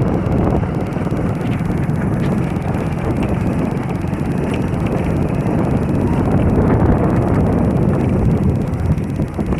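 A commuter motorcycle's engine running steadily as the bike rides along, mixed with wind rushing over the microphone.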